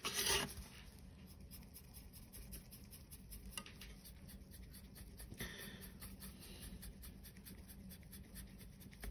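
Faint, rapid scratchy strokes of a stiff flat brush dry-brushing paint onto a black-primed steel sheet with a tread-plate texture, with a brief louder handling noise right at the start.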